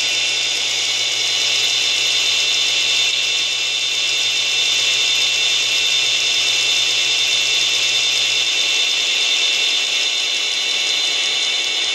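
QSI Titan sound decoder playing its EMD SD40-2 diesel locomotive sound through a single small loudspeaker: a steady, thin, hissy running sound with most of its energy high up. A low hum under it drops away about eight and a half seconds in.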